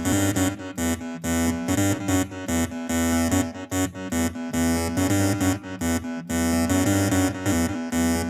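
Electronic dark electro music: synthesizer chords over a pulsing bass, with a regular beat of short, choppy gaps.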